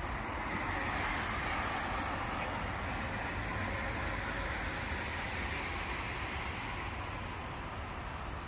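Outdoor traffic noise: a vehicle passing, its sound swelling about a second in and slowly fading over several seconds.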